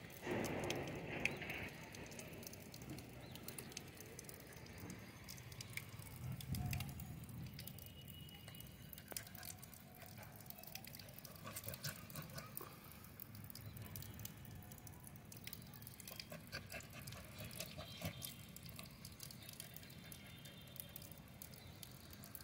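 Light pattering of water on a wet tiled floor: scattered small splashes and ticks throughout, with a louder rush of noise in the first second or two.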